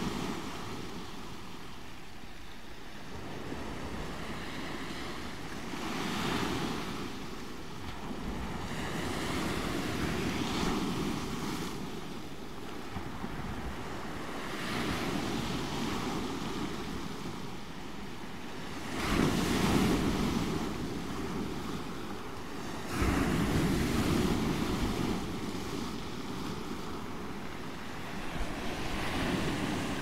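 Small waves breaking one after another onto a shingle beach and washing back through the pebbles. Each surge comes every four to five seconds, and the loudest breaks fall about two-thirds of the way through.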